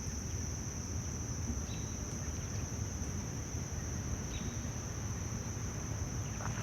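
Insects in the trees or grass giving one continuous, steady high-pitched drone, over a low rumble on the microphone. Two faint short chirps come through, about a second and a half in and again near four seconds.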